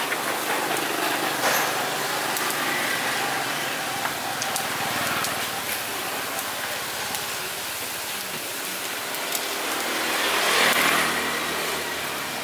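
Street ambience: a motor vehicle's engine running under a steady hiss of background noise, swelling louder about ten seconds in.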